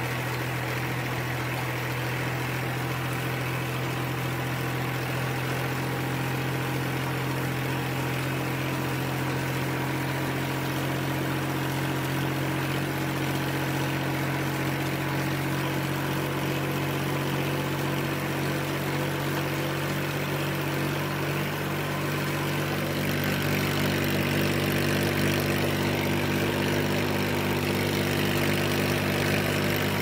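Tractor engine running steadily while towing a rotary hay rake, a low even hum. A faint rapid pulsing joins in about two-thirds of the way through, and the sound gets a little louder near the end.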